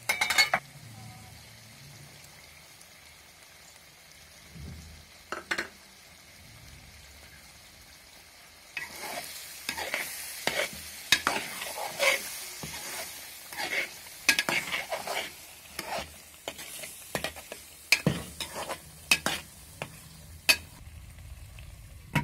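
An aluminium pot lid lifts off with a clatter, then chicken karahi sizzles in its pot while a metal spoon stirs yogurt through it, scraping and clinking against the pot. Near the end the lid clicks back on.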